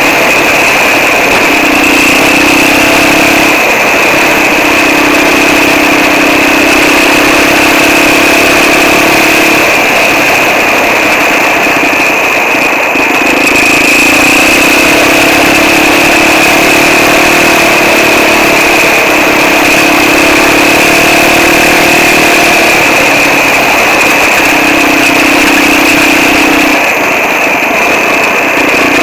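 Quad bike engine running on a dirt track, its note rising and dropping back every few seconds as the throttle is opened and eased off, with a steady high whine over it.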